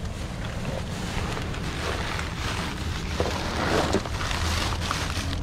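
Clear plastic trash bag rustling and crinkling as gloved hands work it open, busiest and loudest about three and a half seconds in. A steady low rumble of wind on the microphone runs underneath.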